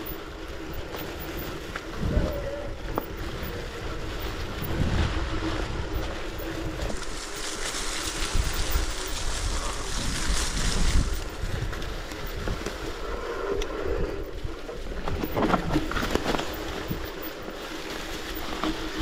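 Wind buffeting the microphone over the rumble of mountain-bike tyres rolling on a rough dirt trail, with scattered knocks and rattles from the bike.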